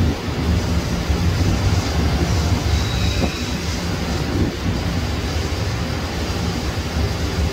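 Airbus A330 airliner's twin jet engines running at low taxi power as it taxis and turns: a steady low rumble with a faint jet whine on top.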